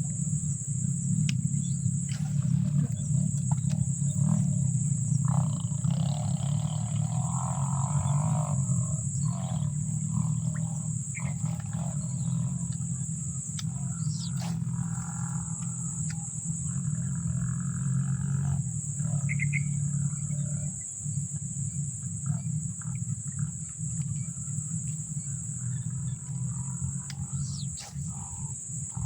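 Swamp ambience at dusk: a steady low chorus of croaking frogs under a continuous high-pitched insect drone, with scattered faint rustles and clicks.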